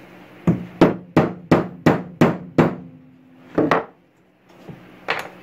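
A hammer strikes wood and metal in a quick run of seven blows, about three a second, then once more a second later, as a hammer head is driven and wedged onto a new walnut handle.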